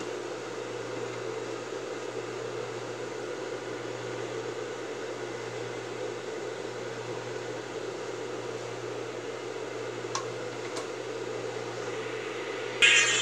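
Steady mechanical hum with a hiss, with two faint clicks about ten seconds in. Music starts just before the end.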